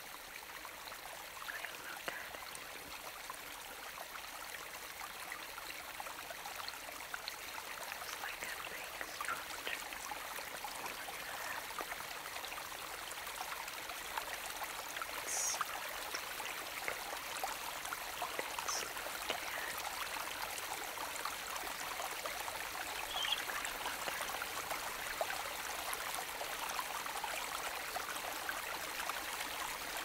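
A brook babbling and trickling steadily, slowly growing louder, with a few brief high sounds in the middle.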